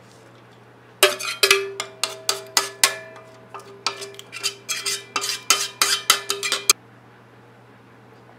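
Metal spoon scraping and knocking against a stainless steel pot while cooked blueberries are scraped out into a glass bowl. Quick clinks, about three or four a second, leave a ringing tone. They start about a second in and stop abruptly near the end.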